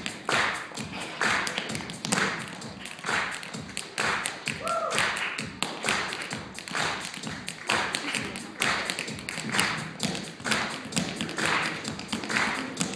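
Tap shoes striking a stage floor in fast, rhythmic patterns from two tap dancers.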